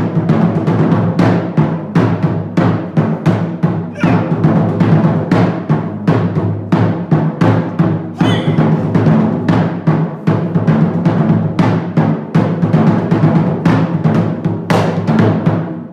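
Japanese taiko drums played in a fast, steady rhythm of many strikes, with a deep booming body under them.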